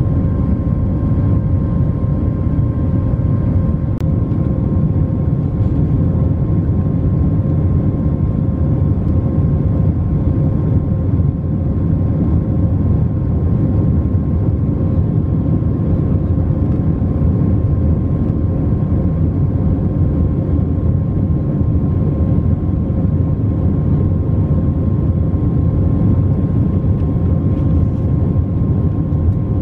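Airbus A321 cabin noise in flight: a steady, loud drone of jet engines and airflow, with an even mid-pitched hum running through it.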